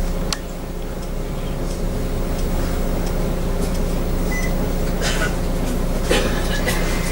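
Steady hum of a stationary bus's idling engine, heard from inside the bus, with a few faint clicks and rattles.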